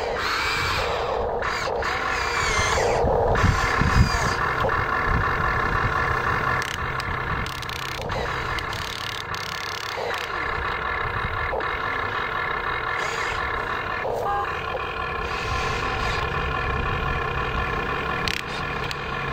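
Huina RC excavator running and working, a steady mechanical whirr with a whining tone as the cab swings and the arm moves. There is a louder stretch with a sharp knock about four seconds in.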